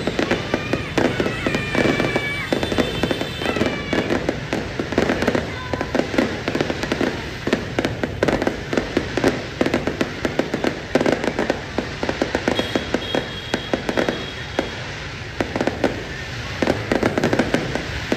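Fireworks going off in a rapid, continuous volley of bangs and crackles. The volley thins out briefly about two-thirds of the way through, then picks up again.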